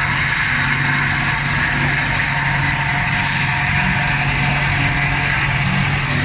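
Automatic CNC metal-cutting band saw running with a steady machine hum, with a short hiss about three seconds in.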